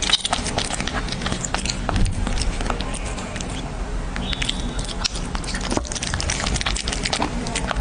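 A cat eating, with an irregular run of small crunchy clicks as it chews.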